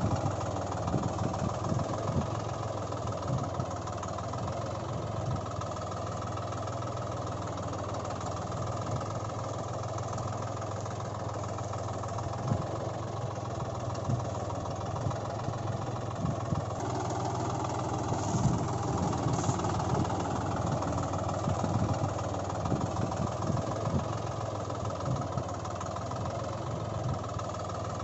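A tractor engine running steadily with a low, knocking hum; the tone changes suddenly about seventeen seconds in.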